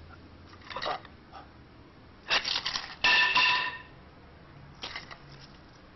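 Old kung fu film soundtrack with short, sharp clattering and swishing effects in a few bursts. The loudest cluster comes about two to four seconds in and ends with a brief ringing tone.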